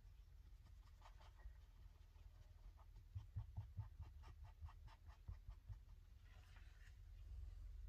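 Faint, quick scratchy strokes on paper as a picture is coloured in, several strokes a second, with a few soft knocks on the table about three seconds in.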